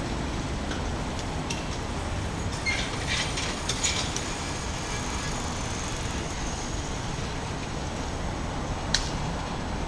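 Steady low rumble of city traffic, with a few light clicks about three to four seconds in and one sharp click near the end.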